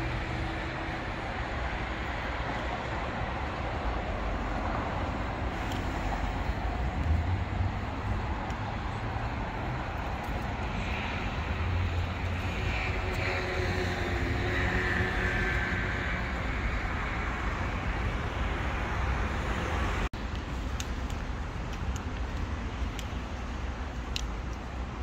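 City street ambience: road traffic going by as a steady low rumble and hiss of engines and tyres. The sound drops out for an instant about twenty seconds in.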